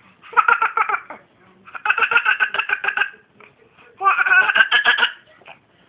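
A young child's high-pitched voice making silly noises in three bursts, each a quick pulsing run of sounds, with short pauses between them.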